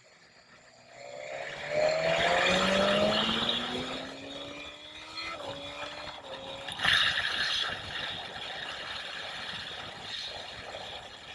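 BMW S1000XR's inline four-cylinder engine accelerating hard out of a corner, its pitch climbing steadily, with one upshift about five seconds in. Wind rush on the onboard microphone, rising with speed, with a sudden loud gust about seven seconds in.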